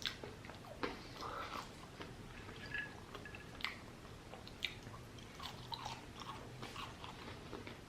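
A person chewing fried food, with faint mouth sounds and scattered small clicks.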